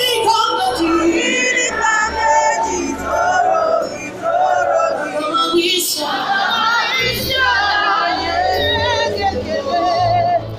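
Live gospel band and singers performing, with voices singing wavering held notes over the band.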